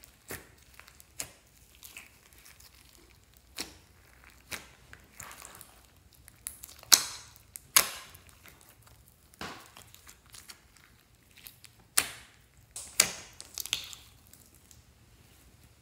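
Slime being pressed, squeezed and stretched by hand in a glass dish, giving irregular sticky pops and crackles as air pockets burst. The loudest pops come about halfway through and again near the end.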